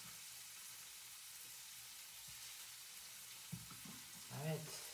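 Food frying in a pan on the stove: a faint, steady sizzle. A brief murmur of a voice near the end.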